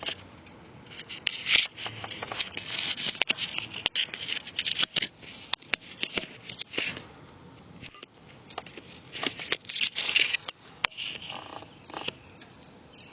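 Irregular rustling and scraping with many scattered sharp clicks, coming and going in uneven bursts.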